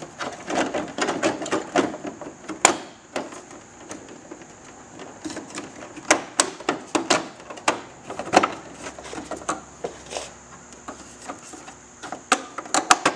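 Hands working a Victory Vision motorcycle's plastic body panel into place: irregular sharp clicks and knocks of plastic, with rubbing and handling noise in between.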